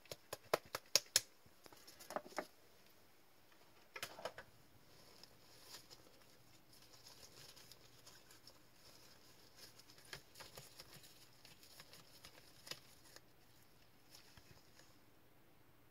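Trading cards and rigid plastic toploaders being handled: a quick run of sharp clicks and taps in the first second or so, a few more taps about two and four seconds in, then faint rustling and light ticking.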